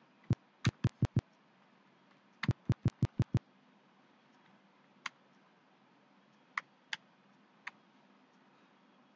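Computer keyboard keystrokes: two quick runs of key presses in the first three and a half seconds, then four separate single clicks.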